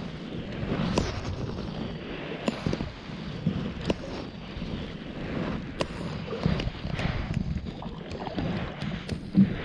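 Wind rumbling on the microphone on open water, with scattered small clicks and knocks and a sharper knock near the end.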